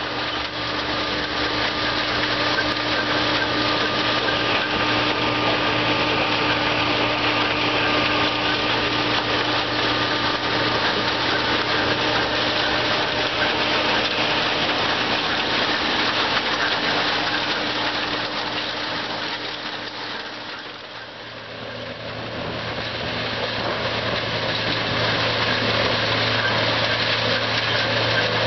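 Fecon MZA3250 horizontal grinder running under load, a steady engine drone mixed with the dense noise of wood and pallets being ground. The sound dips briefly about two-thirds of the way through, then resumes at full level.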